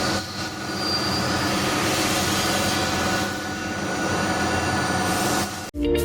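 Diamond wire saw cutting machine running, a steady mechanical hiss and squeal from the moving wire. It cuts off suddenly near the end, and guitar music starts.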